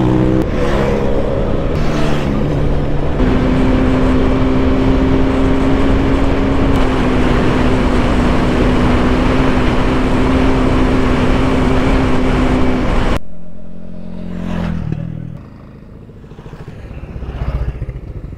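Suzuki Gixxer 250's single-cylinder engine pulling hard, shifting up a couple of times in the first three seconds, then holding a steady high drone at speed under heavy wind rush. About 13 seconds in it cuts off suddenly to a quieter roadside where a vehicle goes by.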